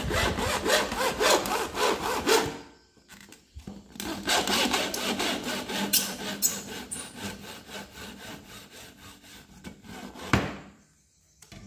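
Hacksaw cutting through a white PVC pipe with quick back-and-forth strokes. The sawing pauses briefly about three seconds in, resumes, and stops shortly before the end as the pipe is cut through.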